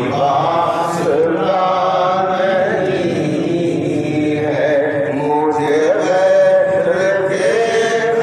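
A man singing a Sufi manqabat (devotional song) into a microphone, in long, drawn-out, wavering notes.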